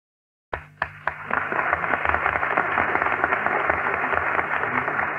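Studio audience applauding on an old, muffled radio broadcast recording: a few separate claps at first, then a steady round of clapping, with a low hum underneath.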